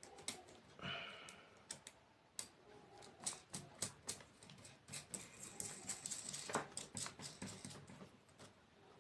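Irregular light clicks and taps of a nut being tightened on a bolt through a folded thin aluminium sheet holding the cables.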